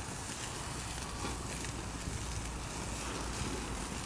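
Gas grill running hot with picanha fat sizzling on the grates and dripping grease flaring in the burner flames: a steady hiss with a low rumble and a few faint crackles.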